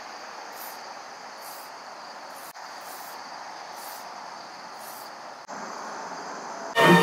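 Outdoor ambience: a steady, even background hiss with a high insect chirp repeating about once a second.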